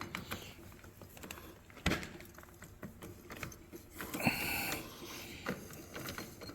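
Hand tools and metal engine parts knocking and clicking, with a sharp knock about two seconds in and a short scraping sound a couple of seconds later.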